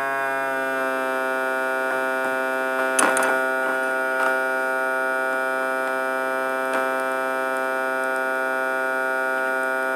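Steady electrical buzz from a homemade Motionless Electromagnetic Generator's pulsed coils and magnetic core, holding one pitch throughout, with a few short clicks about three and four seconds in.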